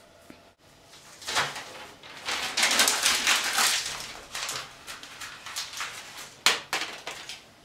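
A sheet of paper being crumpled by hand: a dense crackling for a few seconds, then lighter rustles and two sharp crinkles near the end.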